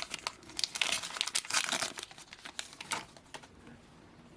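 Crinkling and rustling of trading-card pack wrappers as packs are handled and torn open, dying down after about three seconds.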